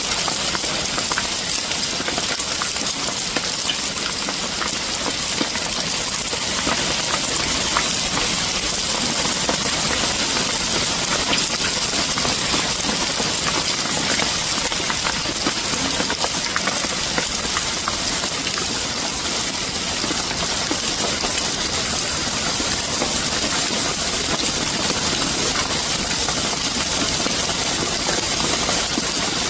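Storm precipitation falling steadily: an even hiss with many small ticks of it striking a surface.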